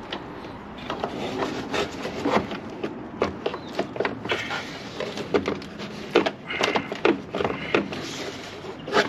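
Irregular knocks, clicks and rubbing of parts being handled and worked loose in a car's engine bay.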